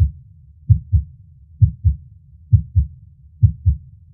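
Human heartbeat sound effect: a steady rhythm of low lub-dub double thumps, about one pair a second, over a faint low rumble.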